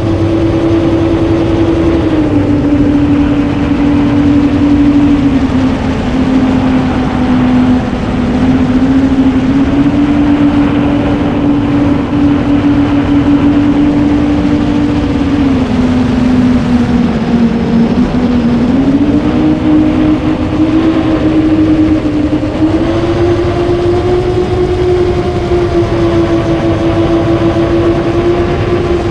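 Motors and propellers of a 9-inch FPV quadcopter, heard from a GoPro mounted on the quad: a steady buzzing hum whose pitch sinks and rises again twice as the throttle changes.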